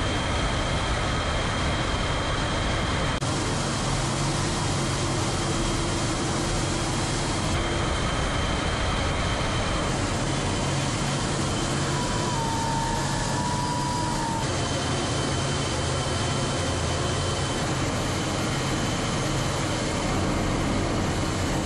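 Steady rush of jet engine and airflow noise from a Su-30SM fighter in flight, picked up by a camera on board the aircraft, with a faint steady high whine over it.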